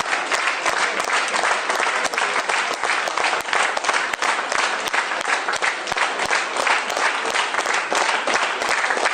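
Audience applauding, a steady, dense clatter of many hands clapping.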